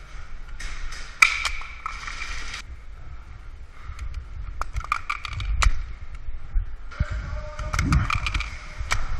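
Airsoft gunfire in two bursts of about two seconds each, about half a second in and again near the end, with scattered sharp cracks of single shots between them.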